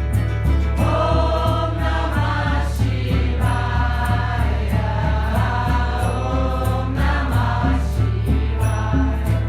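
Background music: voices singing a devotional mantra chant in the kirtan style, over a steady low beat.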